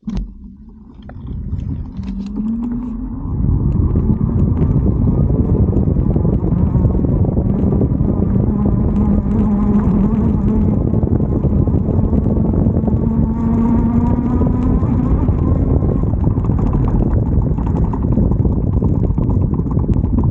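E-bike front hub motor whining as it drives, the whine rising in pitch at first and then holding steady, under heavy wind noise on the microphone. The whine fades about three-quarters of the way through.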